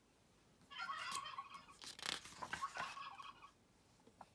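Turkey gobbling, a rapid warbling burst starting about a second in and lasting a few seconds, with a crackly rustle in its middle.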